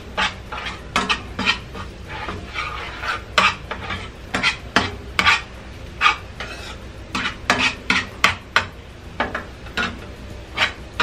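A metal spoon stirring chopped garlic in a frying pan: irregular scrapes and clinks of metal on the pan, about one or two a second, over a faint sizzle of the garlic frying in hot oil.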